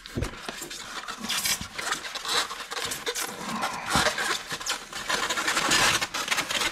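Styrofoam packing insert scraping and squeaking against a cardboard box as it is handled and pushed into place, with a couple of knocks, one right at the start and one about four seconds in.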